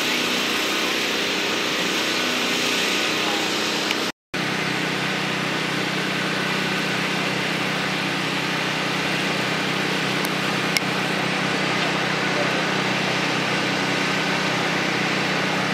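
A small engine running steadily, a constant hum under an even hiss; it drops out for an instant about four seconds in and carries on.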